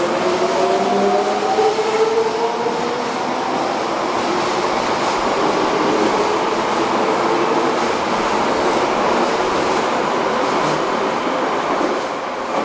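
Toei 5300 series subway train accelerating away from an underground platform. Its GTO-VVVF inverter whines in several rising tones over the first few seconds, under the rumble and clatter of wheels on rail as the cars pass. The noise drops as the last car goes by at the end.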